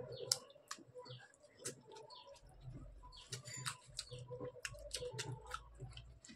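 Faint wet clicks and smacks of fingers mixing rice and vegetable fry on a plate and of eating by hand. A small bird chirps repeatedly in the background, about twice a second.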